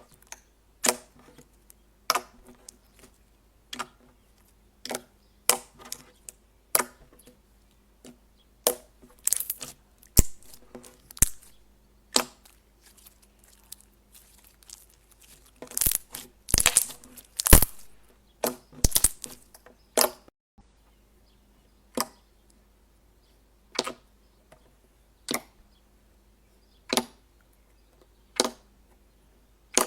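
Slime being pressed and squeezed by hand, giving sharp popping clicks about once a second, with denser bursts of crackling pops around the middle.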